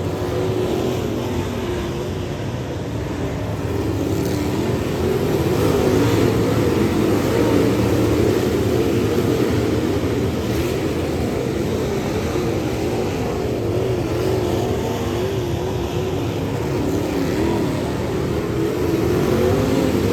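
Dirt late model race car V8 engine running hard at speed, its pitch wavering up and down continuously.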